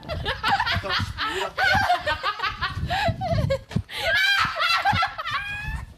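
Several people laughing and giggling, with bits of talk mixed in; near the end one voice rises into a longer, high held sound.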